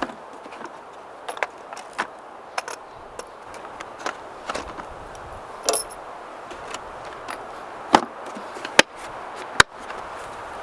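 Scattered sharp clicks and knocks, roughly one a second, over a steady hiss, with three louder knocks near the end.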